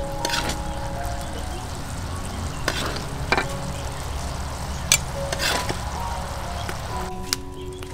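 Coconut milk bubbling at a simmer in an aluminium wok while a ladle stirs and scoops through it, knocking against the pan a few times.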